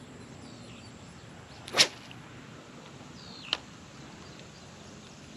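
A fishing rod swishing through the air on a cast, one sharp whoosh about two seconds in, followed by a short click about a second and a half later, over a low steady outdoor background.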